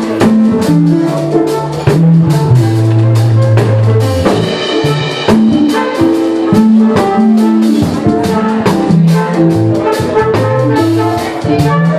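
Live jazz fusion band playing: a drum kit keeps a steady beat under a bass line of held notes that changes about every half second to a second, with a sustained chord about four seconds in.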